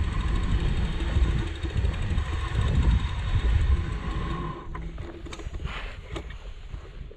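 Wind buffeting the microphone and tyre noise from a moving bicycle. The rushing dies away about four and a half seconds in, leaving scattered light clicks.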